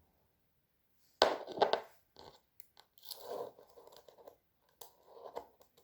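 Kinetic sand being pressed, cut and scraped by hand and with a tool: a sharp clatter about a second in, then intermittent crunching and scraping.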